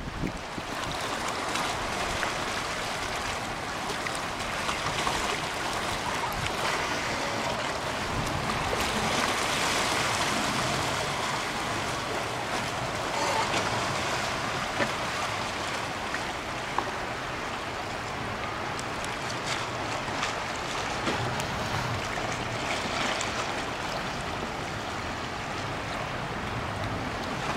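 Shallow seawater washing against a rocky shoreline: a steady rushing noise, with a couple of brief ticks near the middle.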